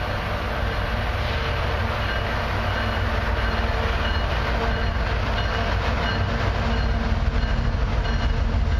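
Diesel locomotives leading a CN freight train approaching: a steady low engine rumble that grows slightly louder.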